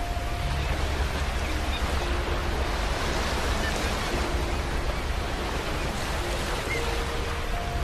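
Ocean surf: waves washing onto a beach in a continuous rushing hiss that swells and eases gently.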